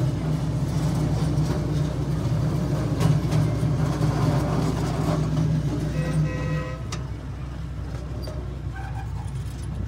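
A miniature amusement-park train running along with riders aboard: a steady low rumble from its motor and wheels. About six seconds in a short steady tone sounds, and the rumble then eases a little.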